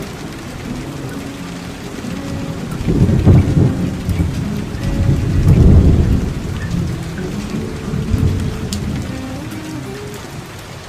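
Steady rain with thunder rolling in, loudest about three seconds in and again near six seconds, with a weaker rumble around eight seconds. A soft guitar melody plays faintly underneath.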